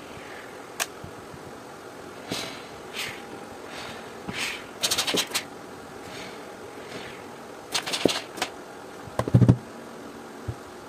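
Panasonic NI-U550 steam iron letting out a series of short hissing puffs of steam, some spluttering with water. A couple of knocks from the iron being handled come near the end, the loudest sounds.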